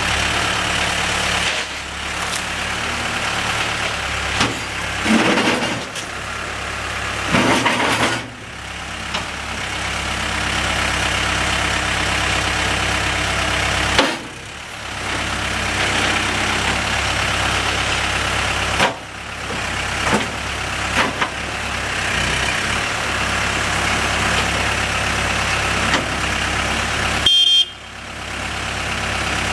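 Case 580M Series 2 backhoe loader's diesel engine running, rising in pitch twice about five and seven seconds in as it revs up. A short high beep sounds near the end.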